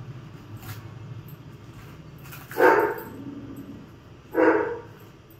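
A dog barking twice, about two seconds apart, each bark short and loud.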